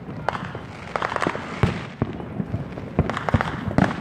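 Fireworks going off all around: a dense, irregular string of bangs and crackling pops, several a second, with the loudest bangs near the end.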